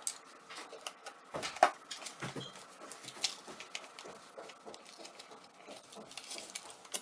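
Scattered small clicks, ticks and light scraping of small metal lock parts and tools being handled while a shim is picked out for the lock core, with a sharper clack about one and a half seconds in.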